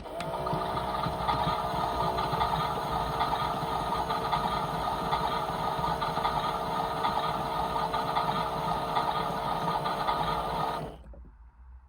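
Small electric motor of a toy washing machine driving the drum: it starts abruptly, its whine rises in pitch over the first second or two as it spins up, runs steadily for about ten seconds, then cuts off.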